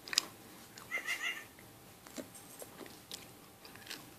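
A small dog playing with a plush toy on carpet: a brief high, wavering squeak of a few quick notes about a second in, with scattered soft knocks and rustles as the dog paws and mouths the toy.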